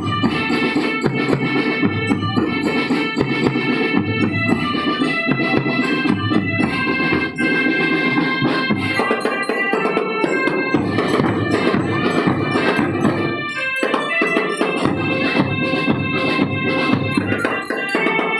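School marching drum band playing: a melody of held, organ-like notes over a steady beat of drums.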